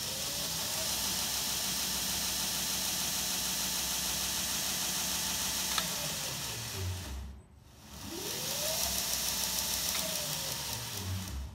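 Homemade 2x72 belt grinder's 1.5-horsepower motor driving the abrasive belt over a 10-inch contact wheel, with a steady hiss from the running belt. It spins up, winds down to a stop about seven seconds in, spins up again with a rising whine, and winds down again near the end.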